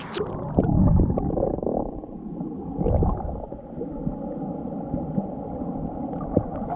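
Muffled underwater sound: gurgling water and low rumbles and thuds, with the high end cut off, as heard through a submerged camera in a waterfall pool.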